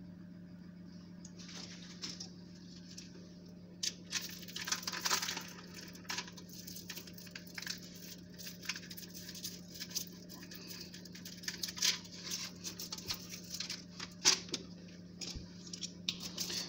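Irregular crinkling and crackling of a tyre repair patch and its plastic protective film as it is handled and pressed by hand onto the inside of a tyre. A steady low hum runs underneath.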